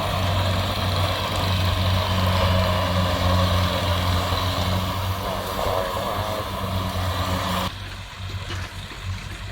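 Kubota DC70 combine harvester running under load while harvesting rice: a steady diesel engine hum with the clatter and rush of its cutting and threshing gear. About three-quarters of the way through the louder machine noise cuts off suddenly, leaving a quieter, duller engine hum.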